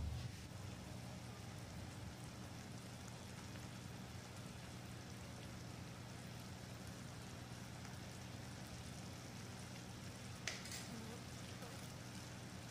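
Sugar syrup boiling hard around chenna cubes in a kadai on high flame: a faint, steady bubbling fizz, with one short click about ten seconds in.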